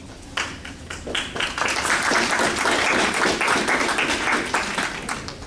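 Audience applauding: dense clapping that starts about half a second in, swells, and dies away near the end.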